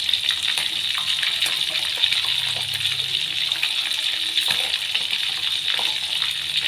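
Oil sizzling steadily in a frying pan, a continuous hiss scattered with small crackles.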